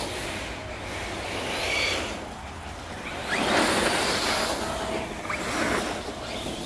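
Two electric RC cars, a TLR Typhon buggy on 3S and a Kraton monster truck on 6S, driving over dry fallen leaves: a rushing hiss of tyres churning through the leaves that swells with the throttle, loudest a few seconds in, with a few short rising motor whines.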